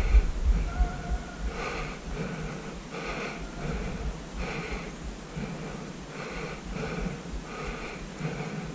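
A man panting hard while running, his breaths coming in an even rhythm of a little over one a second. Wind buffets the microphone near the start.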